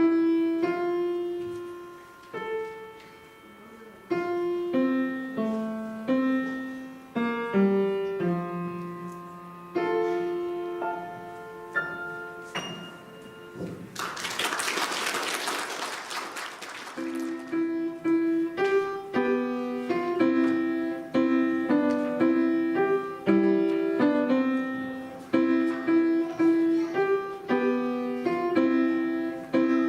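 Piano playing a piece that ends about halfway through, followed by about three seconds of audience applause; then the piano starts another piece.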